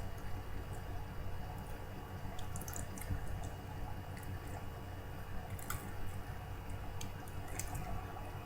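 Homemade glue-and-laundry-detergent slime being squeezed and worked in the hands, giving small wet clicks and squishes every so often over a steady low background hum.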